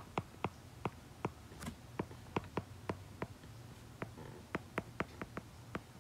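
Stylus tip tapping and ticking on a tablet's glass screen during handwriting: a quick, irregular run of sharp little clicks, about three to four a second, over a faint low hum.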